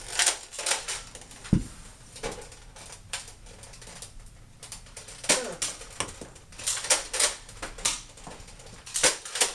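Irregular sharp plastic clicks and clacks of toy Nerf blasters and their dart clips being handled, primed and fired, with one heavier thump about a second and a half in.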